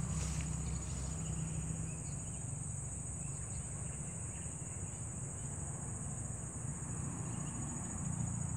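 Steady high-pitched drone of insects, with a constant low rumble underneath.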